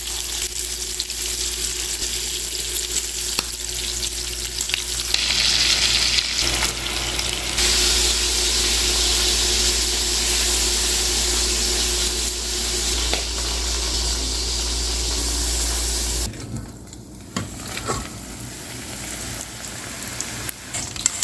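Cut potatoes frying in hot oil for French fries: a steady sizzle that gets louder a few seconds in and cuts off suddenly about three-quarters of the way through, followed by a few light clicks.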